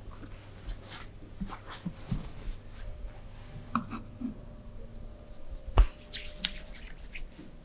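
Massage sounds: hands rubbing and pressing on skin and clothing, with several soft clicks and one sharp, loud crack about six seconds in.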